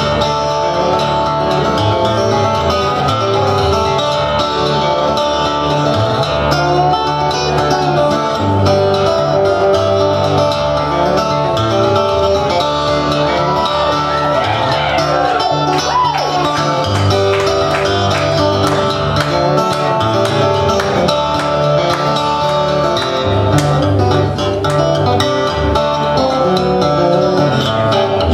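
Harp guitar played solo: a fingerpicked instrumental with plucked melody notes over a repeating bass line.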